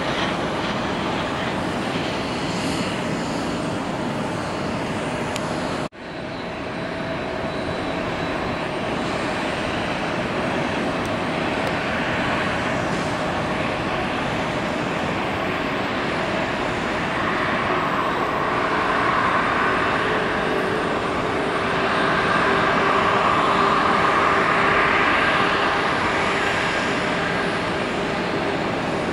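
Jet engines of a British Airways Boeing 777 taxiing, a steady rumble and whine that grows louder past the middle as the plane comes closer, then eases a little near the end. About six seconds in the sound drops out for an instant at an edit.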